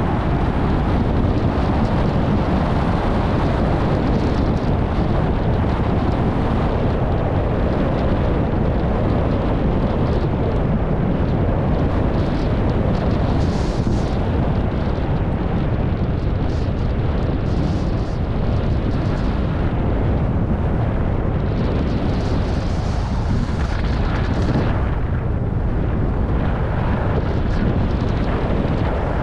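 Wind rushing over a moving skier's camera microphone as a steady low rumble, mixed with the hiss of skis sliding over packed snow, which grows brighter now and then.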